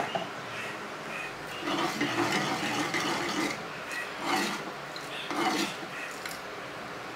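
Wooden spoon stirring thick rice gruel and scraping against the inside of an earthenware clay pot, in irregular rasping strokes: a run about two seconds in, then shorter strokes near four and five and a half seconds.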